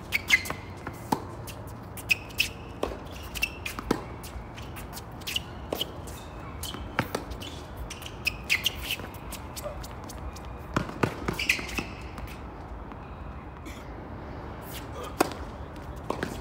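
Tennis singles rally on a hard court: a string of sharp racket-on-ball hits and ball bounces, with short squeaks of tennis shoes on the court surface.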